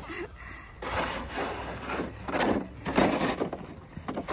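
Crunching and scraping on packed, icy snow in a run of short bursts, roughly one every half second, through the middle stretch.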